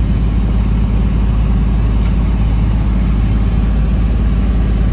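Steady low engine rumble of a vehicle, heard from inside its cabin through the window glass, with no change in pitch or level.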